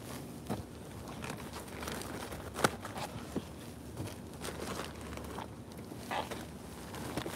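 Plastic trash bags and paper rustling and crinkling in irregular bursts as gloved hands rummage through the rubbish, with one sharp knock about two and a half seconds in.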